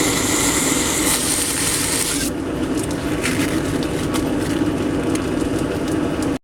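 Metal lathe running steadily, with a high hiss over it that drops away a little over two seconds in; the sound cuts off suddenly at the end.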